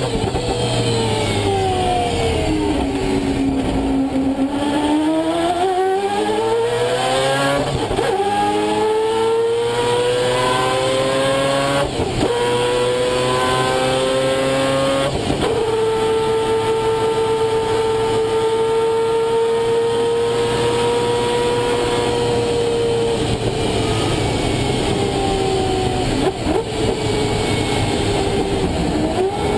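Mazda 787B's four-rotor R26B Wankel rotary engine heard from on board. The revs fall for the first few seconds, then climb through three upshifts about four seconds apart. After that they hold steady and high, easing off slightly near the end.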